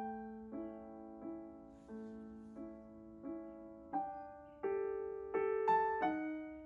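Background piano music: a slow, gentle melody, one note struck about every two-thirds of a second, each ringing and fading.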